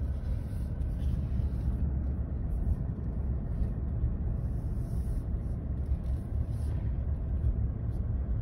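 Vehicle's engine and tyre noise heard from inside the cabin while driving: a steady low rumble.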